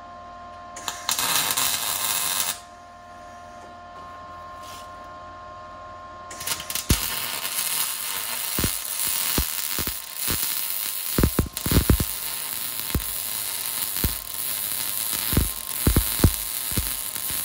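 Arc welding on steel under a vehicle frame: a steady hum at first, a short burst of crackling arc about a second in, then from about six seconds in a continuous crackling sizzle with irregular pops and spatter. This is a mounting plate being welded to the bottom of the frame.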